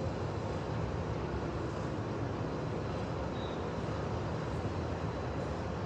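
Steady low rumble of city ambience, a distant traffic hum with no distinct events.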